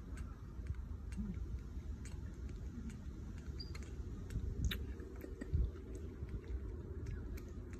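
Baby macaque sucking milk from a plastic feeding bottle: a scatter of small, irregular wet clicks and smacks over a steady low rumble.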